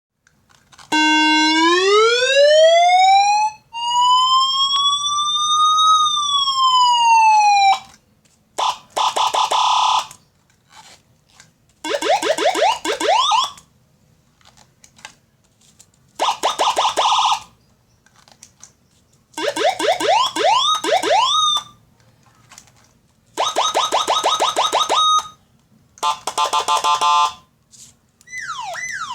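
Nine-tone electronic siren with a 15-watt amplifier, playing its tones one after another with short gaps between them. First comes a rising wail, then a slow rise and fall. After that come short runs of rapid warbling and repeated rising yelps, and near the end fast falling sweeps.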